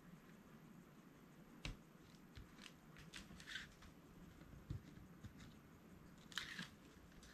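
Faint handling of paper and tape on a card: a few soft clicks and two brief scratchy rustles, the clearest about six and a half seconds in, as fingers press and smooth the taped acetate pocket.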